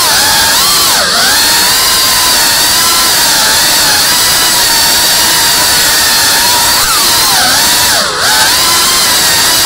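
Cinewhoop FPV drone's small brushless motors and ducted propellers whining loudly in flight. The pitch wavers with throttle, dipping sharply and climbing back about a second in and again shortly before the end.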